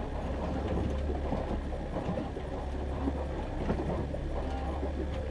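Boat motor running steadily with a low, even hum while the boat moves along, with water and hull noise.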